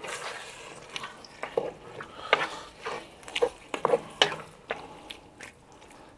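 A wooden spoon stirring a thick, simmering mince and vegetable tomato sauce in a cast-iron Dutch oven. Irregular wet scrapes and knocks of the spoon against the pot sound over a faint steady hiss, and they ease off near the end.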